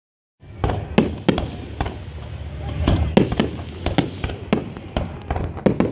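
Fireworks display: aerial shells bursting in an irregular series of sharp bangs and cracks, about a dozen, starting about half a second in, over a continuous low rumble.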